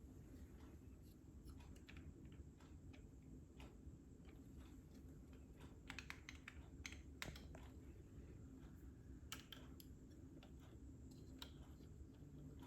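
Faint, scattered light clicks and taps from small objects being handled, with a cluster about six to seven seconds in, over a low steady hum.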